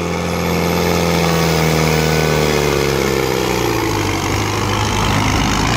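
A John Deere pulling tractor's diesel engine under full load as it drags a weight sled, its pitch sinking steadily over the first few seconds as the sled bogs it down. A faint high whistle rises and falls above it.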